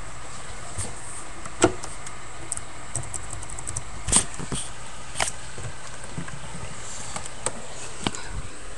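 Handling noise: a few scattered knocks and clicks as the webcam is moved and things are set down, over a steady low hum. The loudest knock comes about a second and a half in, with another about four seconds in.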